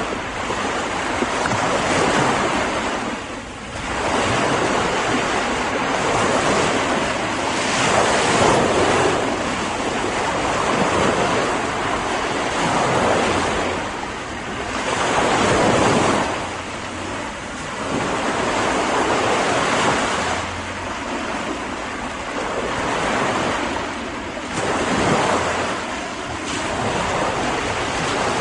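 Sea waves breaking and washing on a beach, a continuous surf that swells and eases every few seconds, with some wind.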